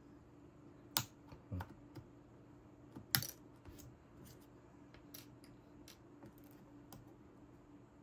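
Plastic keycaps on a Lenovo Legion 9i laptop keyboard clicking as they are pried up with a thin metal tool: a string of irregular sharp clicks, the loudest about one and three seconds in.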